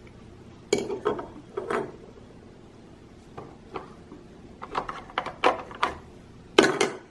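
Small hard plastic toy pieces clattering and knocking against each other and a toy truck as they are handled, in a string of irregular knocks, busiest about a second in and again in the last few seconds.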